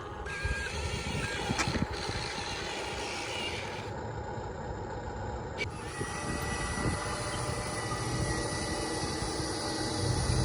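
Radio-controlled excavator model at work: a steady whir of its small electric motors, with a thin high tone. The sound changes abruptly twice near the middle.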